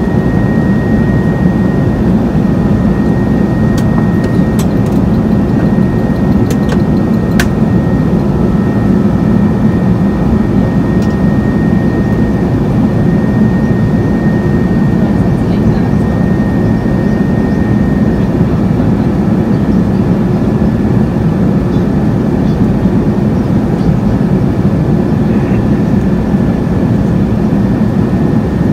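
Steady cabin noise of an Airbus A380 in flight: a dense, even rumble of engines and airflow heard from inside the cabin, with a faint steady high tone over it. A few light clicks come between about four and seven seconds in.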